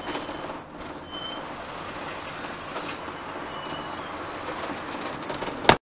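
Steady road and engine noise of a motorhome driving in highway traffic, heard from inside the cab. A single sharp click near the end, after which the sound cuts out.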